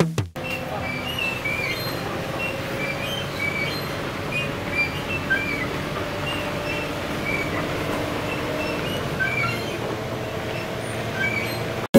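Steady engine and road noise heard from inside a moving bus, with a scattering of short high chirps.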